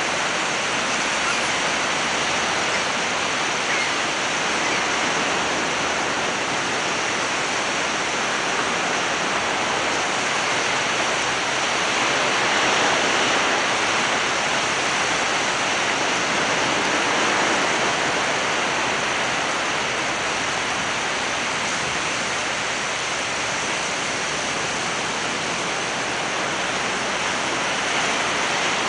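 Ocean surf: a steady wash of breaking waves, swelling a little about halfway through.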